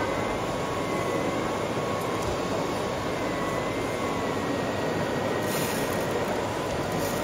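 Steady background din with a faint, slightly wavering whine of a small electric motor as an RC model wheel loader works its bucket. There is a brief high hiss about five and a half seconds in.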